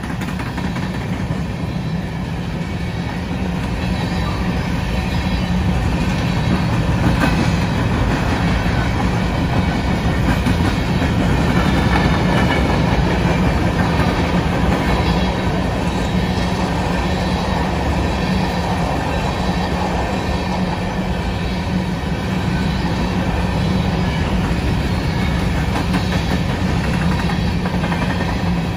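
Freight train of covered hopper cars rolling past: a steady rumble of steel wheels on the rails with occasional clacks, growing louder over the first few seconds and then holding.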